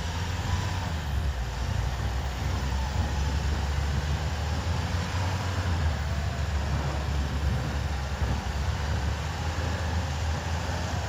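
Motor vehicle engine running steadily with a low rumble, heard from on or in the moving vehicle.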